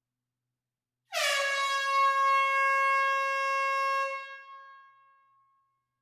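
A single air horn blast in a small, enclosed hall, starting suddenly about a second in with a brief dip in pitch. It holds one steady note with a rich, buzzy stack of overtones for about three seconds, then trails off over the next second and a half.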